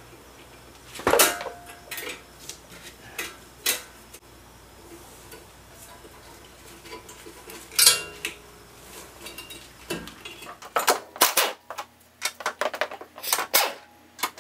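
Sharp metallic clinks and knocks of tools and suspension hardware being handled while a front shock is unbolted from a car's wheel well, with a quicker run of clicks in the last few seconds.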